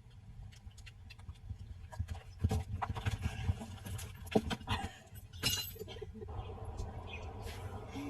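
A farm animal moving about, with a run of irregular knocks and clatter starting about two seconds in and a louder brief rush of noise about five and a half seconds in, over a steady low rumble.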